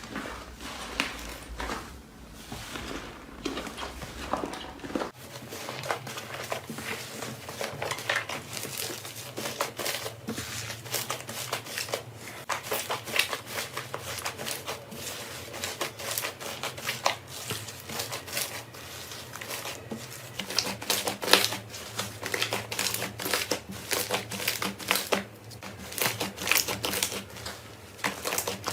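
Hands working slime, making dense, rapid crackling and clicking sounds. The background changes about five seconds in, as if a new clip begins.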